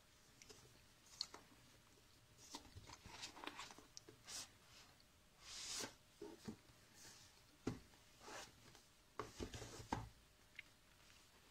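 Faint handling of a cardboard retail box: scattered taps, light scrapes and clicks, with a longer sliding swish a little before the middle as the inner box is drawn out of its sleeve.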